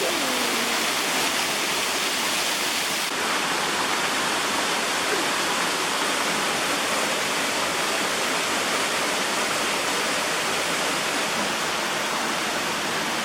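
Waterfall pouring into a pool, a steady rush of falling water.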